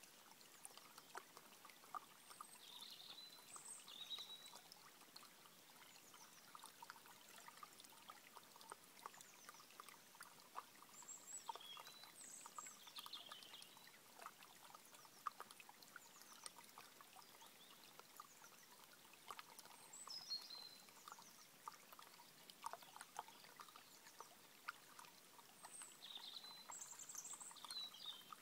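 A small, shallow stream trickling faintly over stones. Brief, high bird chirps come in now and then.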